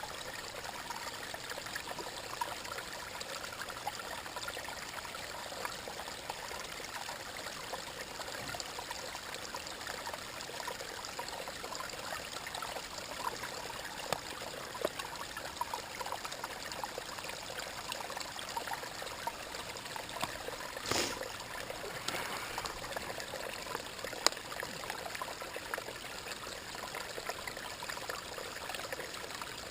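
Small mountain stream running, a steady trickling and splashing of water over rocks, with a couple of brief clicks in the middle.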